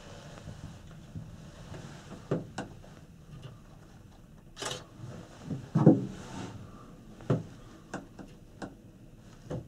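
Inside a Panoramic Mont Blanc group-gondola cabin riding the cable: a low steady rumble with irregular knocks and clicks, the loudest about six seconds in.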